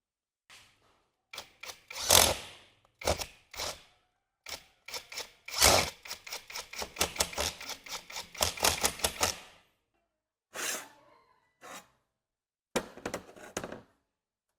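Hand-tool work: a series of sharp knocks and clicks, with a fast, even run of about five strokes a second in the middle.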